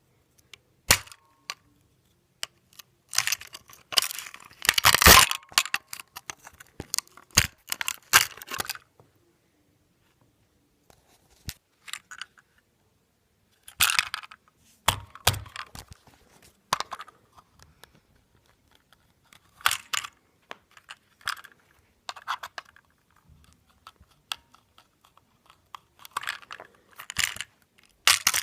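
An alarm clock being broken apart by hand: bursts of cracking, snapping and clinking of its parts, separated by pauses of a few seconds, with the loudest run about four to five seconds in.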